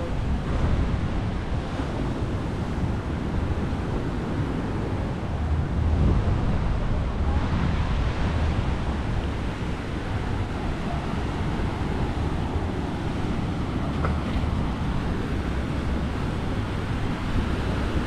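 Sea surf washing onto a sandy, rocky beach, a steady wash, with wind buffeting the microphone in a low rumble.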